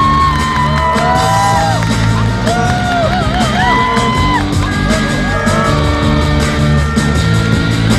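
Loud music: a melody line that slides between notes and wavers briefly in the middle, over a steady bass line.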